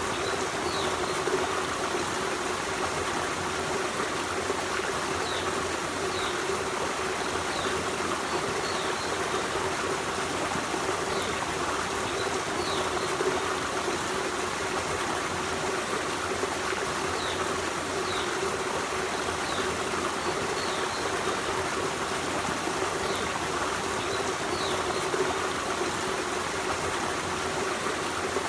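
Forest stream flowing: a steady rush and trickle of running water, with a bird's short, high chirps every second or two.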